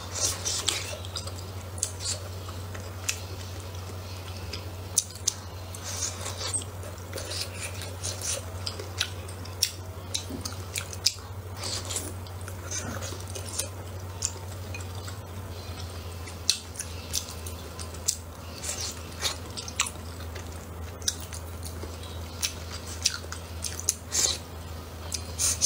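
Close-up eating sounds: wet slurping and chewing of wontons in spicy soup, with many short lip and mouth clicks. A steady low hum runs underneath.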